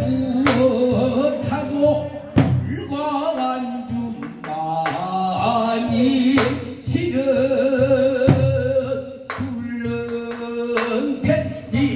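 Man singing a Korean folk song (minyo) through a microphone and PA, holding long notes with a wide vibrato. A buk barrel drum gives sharp strokes at intervals, over a steady low pulsing accompaniment.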